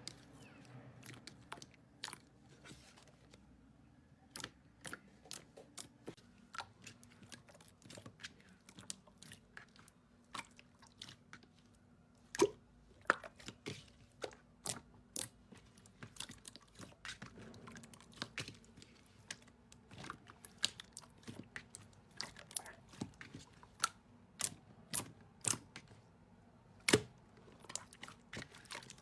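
Slime being played with, giving irregular sharp crackling clicks and pops, several a second, over a faint low hum, with a couple of louder pops along the way.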